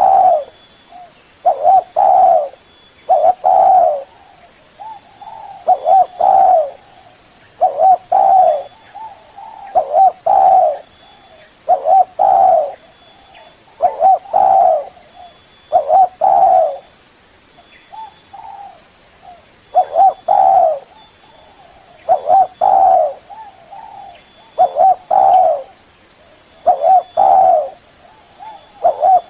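Spotted dove cooing over and over: short phrases of two or three low coos, repeated about every two seconds. It is the rival-calling song used as a lure.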